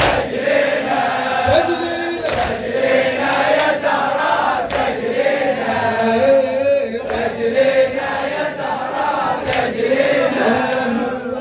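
A crowd of mourners chanting a lamentation chorus together in a latmiya, with sharp hand slaps of chest-beating at irregular intervals.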